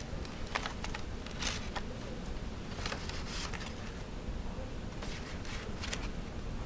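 Scattered light clicks and rattles of kitchen handling, in small clusters, over a steady low background hum.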